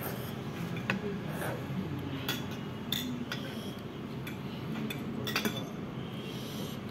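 Metal forks and chopsticks clinking and scraping on ceramic plates and bowls while noodles are twirled and eaten: irregular light clinks, with a cluster of louder ones about five seconds in.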